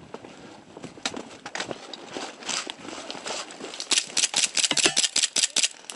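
Irregular crunching and cracking, like footsteps through dry undergrowth and twigs, growing denser and louder about two-thirds of the way in.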